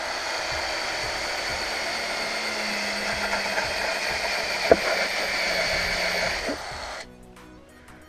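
Cordless drill with a spade bit boring through a panel, its motor whirring steadily under load with one sharp click about halfway. It stops about seven seconds in.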